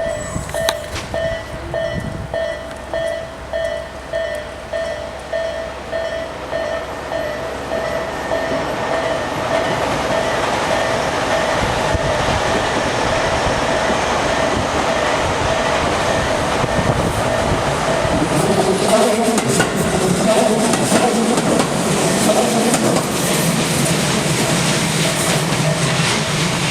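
Tobu Railway level crossing warning bell of the slow-tempo Isesaki-line type (Tobu sound A) ringing about twice a second. From about eight seconds in a train approaches and passes over the crossing, louder in the second half, with wheels clattering over the rail joints under the ringing.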